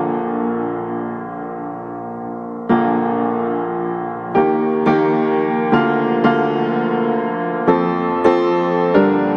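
Background music: slow piano chords, each struck and left to ring, with new chords about every half-second to second and a half in the second half.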